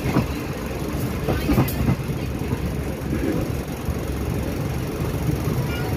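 Passenger train running along the tracks, heard from inside the coach: a steady low rumble of wheels on rails, with a few knocks about one and a half seconds in.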